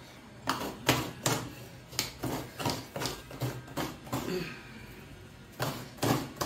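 Fresh coconut being grated by hand: a coconut half scraped against a hand grater in quick rhythmic strokes, about three a second, with a pause of a second or so past the middle before the scraping resumes.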